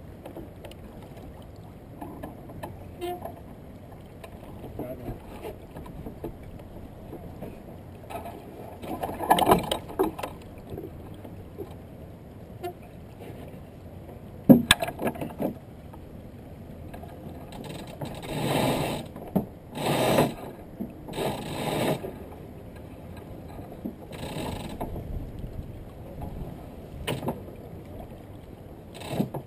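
Small boat on the water: a steady wash of water and wind, broken by occasional splashes and knocks, with one sharp knock about halfway through and a cluster of splashes shortly after.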